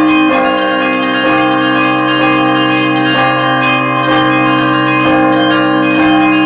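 Russian Orthodox church bells ringing the Easter peal: bells struck about once a second, their tones ringing on and overlapping over a steady deep hum.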